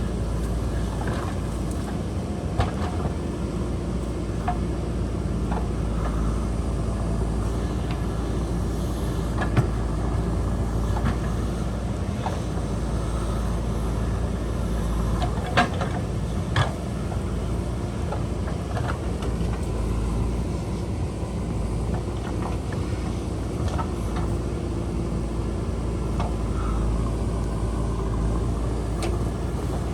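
JCB backhoe loader's diesel engine running steadily under work, with a few sharp knocks scattered through.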